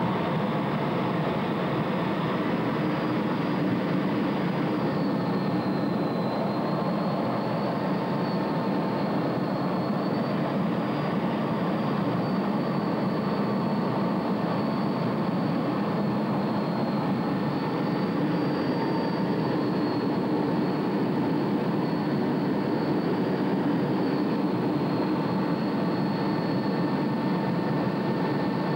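Steady jet cockpit noise, the engine and rushing air heard from inside the canopy, with a faint high whine that wavers slightly in pitch.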